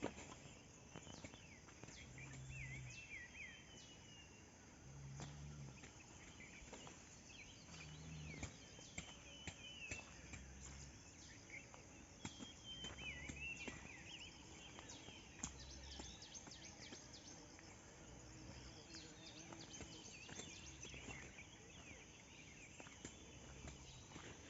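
Faint rural ambience: birds chirping in short falling phrases over a steady high insect buzz. A faint low hum pulses about every two and a half seconds.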